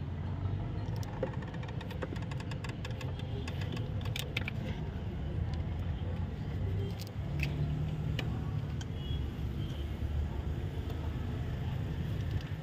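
Steady low hum under scattered light clicks and metal taps from hands working around the engine's drive belt and pulleys.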